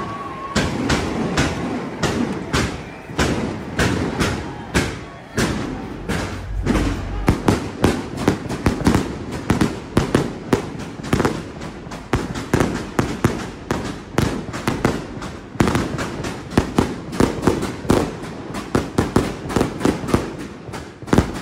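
A rapid, uneven run of sharp cracks and bangs, several a second, packing closer together after about six seconds.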